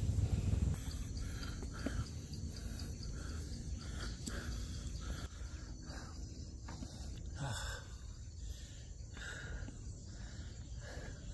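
Insects chirring steadily in high, pulsing tones, with soft repeated steps of a person walking and a low rumble on the microphone in the first second.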